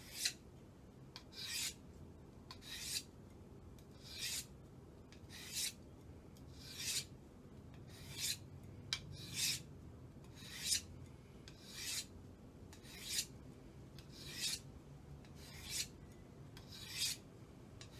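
Knife blade drawn across a Warthog 600-grit diamond sharpening plate with light pressure to sharpen a convex edge: about fifteen short, high rasping strokes, roughly one every second and a quarter.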